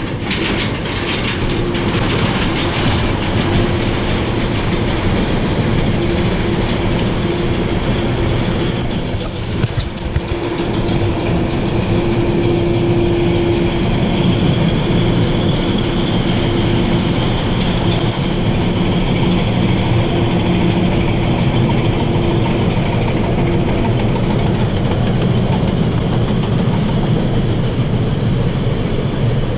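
Roller coaster train rolling out of the station and up the lift hill, heard from the front car: a steady mechanical rattle of the train and lift, with a steady hum through most of the climb.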